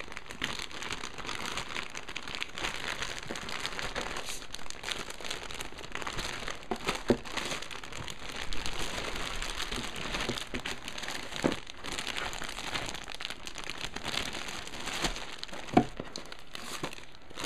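Clear plastic bags holding plastic model-kit runners crinkling and rustling as they are handled and shifted in the box, with a few sharper clicks along the way.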